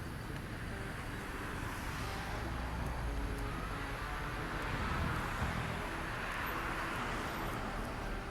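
Road traffic: motor vehicles passing close by on the road, their tyre and engine noise swelling through the middle and easing off near the end.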